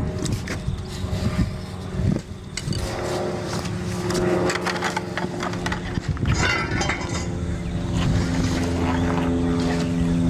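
An engine-like motor running steadily, its pitch stepping up about eight seconds in. There are a few scattered knocks in the first couple of seconds.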